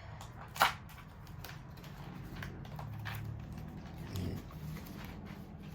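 Handling noises: a sharp click about half a second in, then faint scattered clicks and rustles as an item and its packaging are handled, over a steady low hum.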